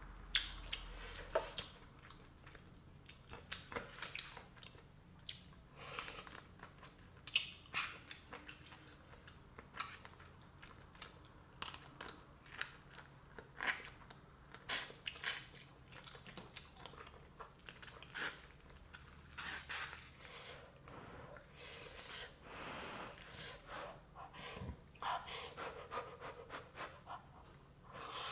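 A person chewing and eating black bean noodles, with short, wet mouth noises coming irregularly throughout.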